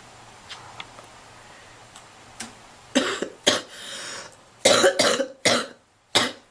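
A girl coughing while smoking, a fit of five or six coughs in quick succession starting about three seconds in.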